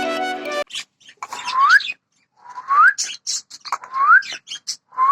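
Music stops abruptly under a second in. Then a short whistle that rises in pitch repeats four times, about a second apart, each with a scratchy start.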